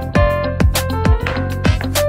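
Background music with a steady beat of about two drum hits a second under held keyboard and guitar tones.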